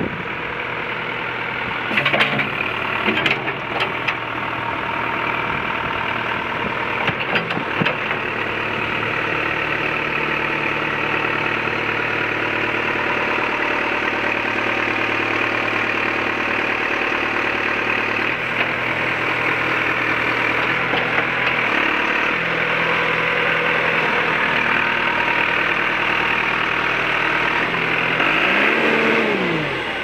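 John Deere 310D backhoe's turbocharged four-cylinder diesel engine running steadily while the backhoe arm is worked, with a few sharp metal clunks in the first eight seconds. About two seconds before the end the engine revs up and drops back down.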